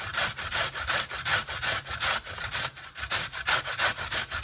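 A swede being grated by hand on a stainless steel box grater: quick, even rasping strokes, about five a second, with a brief lull a little before three seconds in.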